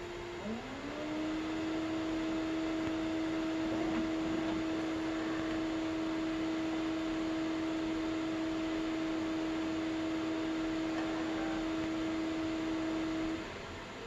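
Epson CW-6000A printer's cooling fans running: a steady whine over rushing air. About half a second in, the whine dips and climbs back as a fan speeds up and it gets louder. Near the end the whine cuts off and winds down as the printer powers off.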